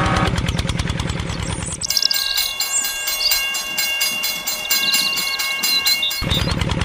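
Battery-powered toy steam locomotive playing its electronic train sound effect, rapid chugging clicks with steady whistle-like tones, starting about two seconds in and stopping abruptly near the end. Before and after it, a fast repetitive pulsing sound.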